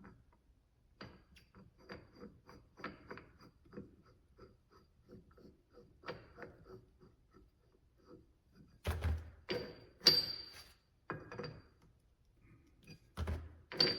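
Small metal clicks and clinks from adjusting a threaded rod and clamshell bearing tool on a Dana 70 pinion, a quick run of light ticks at first, then a few louder clanks with a dull thud about nine seconds in and again near the end.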